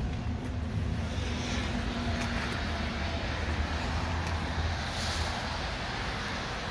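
Jeep Wrangler engine idling steadily with the driver's door open: an even low hum with a light hiss over it. A short knock comes right at the start.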